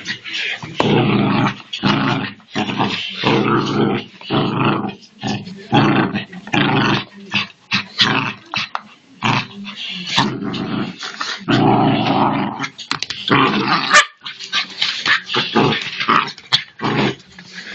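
Small dog growling in short bouts, one after another, while tugging at a slipper it won't give up: a playful, possessive tug-of-war growl.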